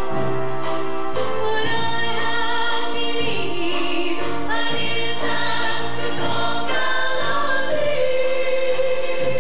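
Mixed-voice high school chorus singing a song through microphones, with several sustained voices moving together in harmony.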